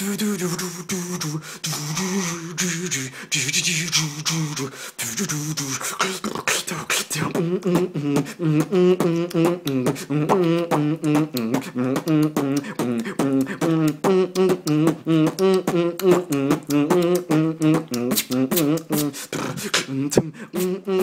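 Solo human beatboxing: rapid mouth clicks and snare hits with a hummed melody line voiced at the same time. For the first several seconds a held, hissing hum carries the tune, then about seven seconds in it becomes a fast, wobbling bass-and-melody pattern.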